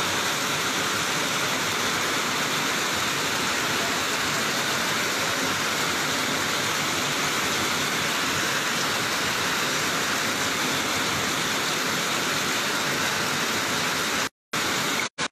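Heavy rain falling, a dense, steady hiss. It cuts out abruptly twice near the end.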